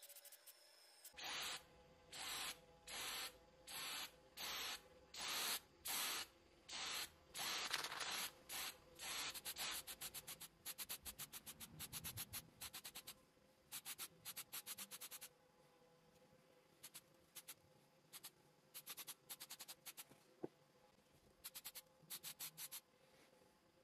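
Aerosol spray-paint can hissing in short bursts as the cast-iron coin bank parts are coated. The bursts come at a steady pace of about one and a half a second at first, then quicken into shorter, rapid bursts with a brief pause in between.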